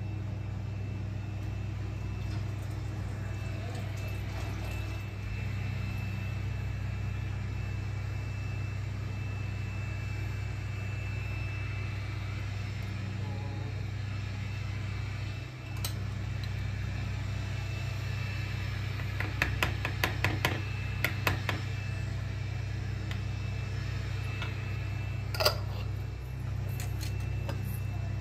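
Steady low mechanical hum, like a kitchen appliance or fan, with a quick run of light clicks and then one sharp click as bottles and containers are handled.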